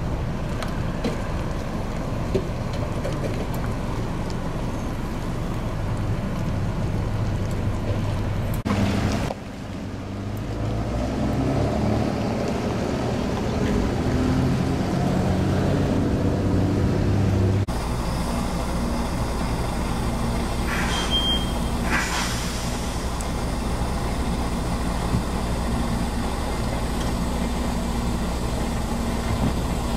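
Engine running steadily with a low hum, changing abruptly about nine seconds and again about eighteen seconds in. A short high beep comes a little past twenty seconds.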